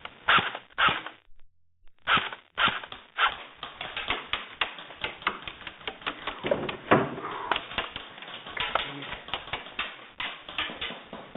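Airsoft guns firing: two single sharp snaps, then from about two seconds in a rapid, irregular clatter of clicks from repeated shots.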